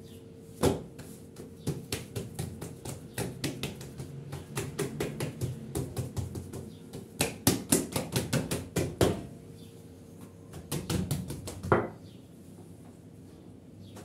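Hands patting and slapping soft pizza dough flat on a floured marble countertop: a run of quick, dull slaps, fastest a little past the middle, that stop about two seconds before the end.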